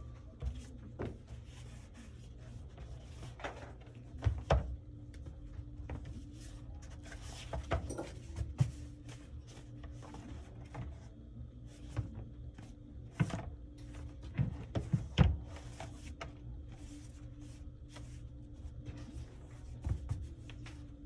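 Steady low machine hum under scattered knocks, taps and rustling as pads and sheets are handled on a workbench, the loudest knock about fifteen seconds in.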